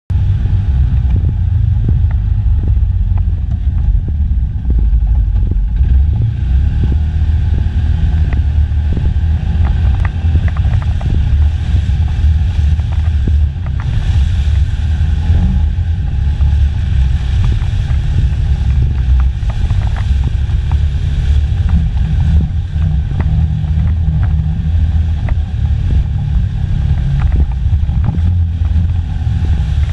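Polaris ACE 570's single-cylinder engine running under load as the stock machine is driven through mud, a steady low rumble with scattered light clicks and knocks.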